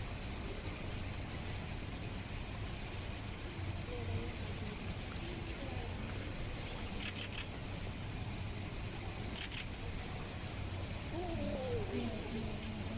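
Faint background voices of onlookers over a steady low hum, with a few brief soft clicks.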